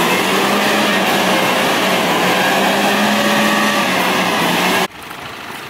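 Off-road 4x4's engine held at high revs under load, a steady strained tone over heavy mechanical noise. It cuts off suddenly near the end, leaving a quieter background.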